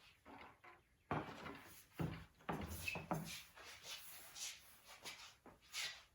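Irregular knocks and scraping as wooden pieces and a jig are handled and set in place; no saw is running.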